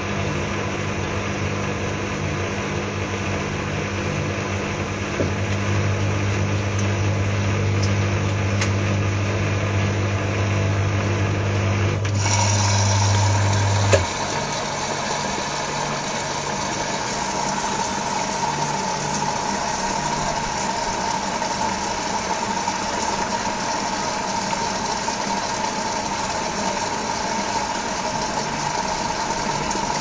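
Whirlpool AWG 371 front-loading washing machine in its rinse cycle: the drum motor hums steadily, then about halfway through the hum stops with a click and a steady hiss takes over.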